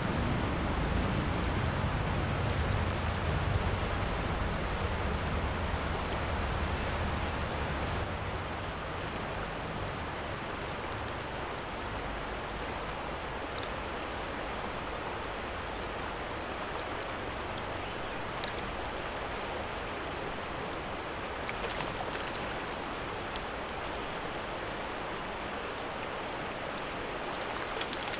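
Steady rushing of a fast, riffled trout stream running high. A deeper rumble in the first eight seconds or so eases off into an even rush.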